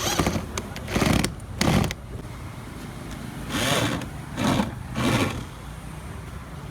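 Factory machinery: a steady low hum broken by six short bursts of hissing noise.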